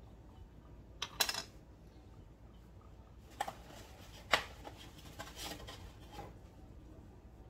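Handling noises from plastic-gloved hands working with a mixing bowl and containers: a brief rattle of clicks and rustling about a second in, single sharp clicks about three and a half and four and a half seconds in (the second is the loudest), then softer rustling.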